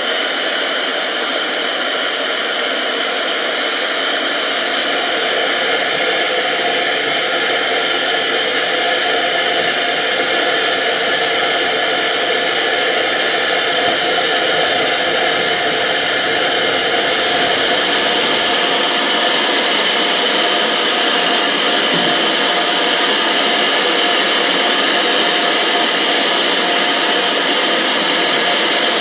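Steam hissing steadily from the LNER V2 locomotive Green Arrow, a loud, even hiss that grows a little louder about five seconds in.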